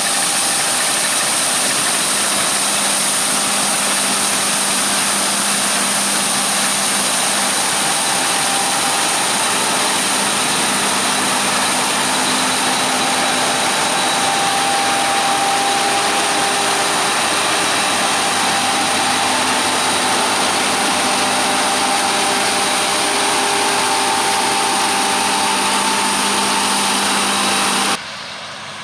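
John Deere S785 combine harvester running steadily at work, a loud, even machine hiss over a steady engine hum. It drops away abruptly just before the end.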